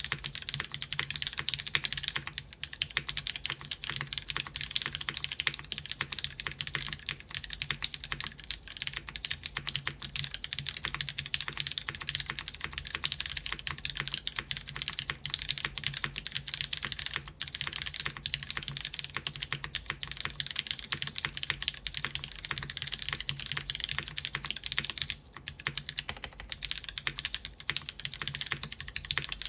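Continuous typing on a GSK 910 mechanical keyboard: lubed Cherry MX Brown switches with 62 g springs and switch films, GMK Chocolatier keycaps, on a full aluminium plate in a top-mounted polycarbonate case. A dense run of keystrokes with a short lull about 25 seconds in.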